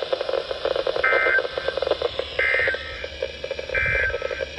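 Three short data bursts of the EAS/SAME end-of-message code, about a second apart, sent over NOAA Weather Radio as the Required Weekly Test ends. They come through a weather radio receiver with steady static underneath.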